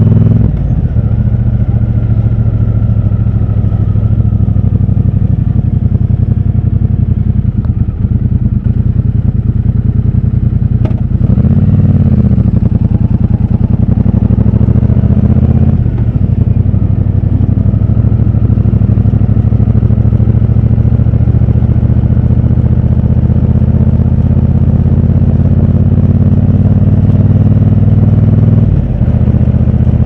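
Triumph Bonneville Bobber's 1200 cc parallel-twin engine running under way in city traffic, heard from the rider's seat. The engine note rises briefly a little over a third of the way in and drops for a moment about halfway and again near the end, with throttle changes.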